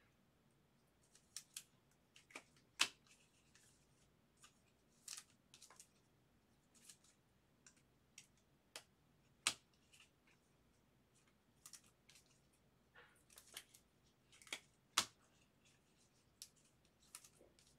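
Trading cards being handled and flipped one at a time: scattered light clicks and rustles of card stock, with three louder snaps spread through.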